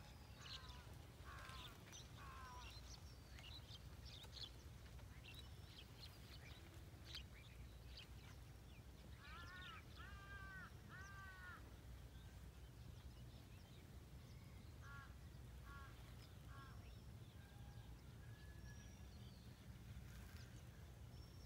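Birds calling over a faint, low, steady rumble. A quick run of falling notes comes at the start, then three harsh arched calls about ten seconds in, short notes a few seconds later, and scattered high chirps throughout.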